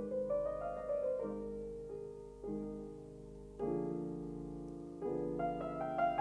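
Background piano music: chords struck about every second and a half, each ringing and fading, with single melody notes above.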